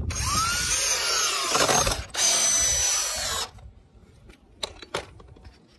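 Cordless drill driving a wood screw into a 2x4 corner joint: the motor whines up and runs hard for about two seconds, stops briefly, then runs again for about a second to seat the screw. Two short knocks follow near the end.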